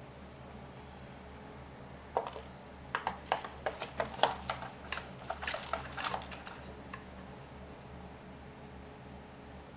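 Cockatiel chick pecking at millet: a flurry of quick, light beak clicks and taps that starts about two seconds in and stops about five seconds later.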